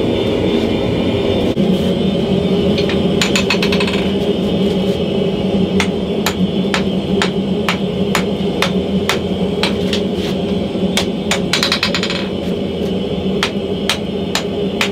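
Hand hammer blows on a red-hot leaf-spring steel cleaver blade on the anvil, about two a second, with two short bursts of quicker, lighter taps. A steady roar from the running gas forge continues underneath.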